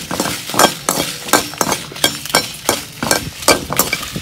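Metal spatula scraping and clinking against a metal kadai while stirring dry red chillies, in quick irregular strokes.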